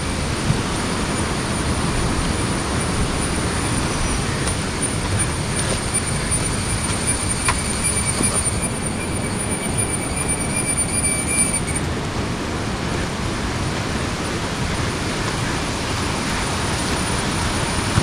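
Steady rushing of water from a forest stream and waterfall flow, an unbroken wash of noise, with a thin high-pitched whine that stops about two-thirds of the way through.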